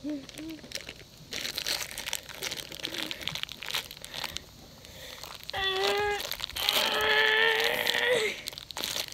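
Thin plastic packaging crinkling and crackling as it is handled, for about three seconds starting a second in. Later a voice makes two drawn-out wordless sounds, the second longer and wavering in pitch.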